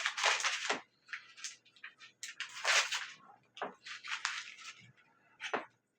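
A packet of dry noodles being crinkled and crushed, with irregular crackly bursts of plastic and brittle noodle.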